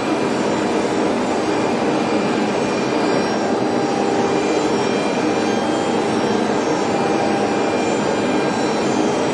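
CNC woodworking router running steadily: a constant high spindle whine over even machine noise, with no pauses or changes in pitch.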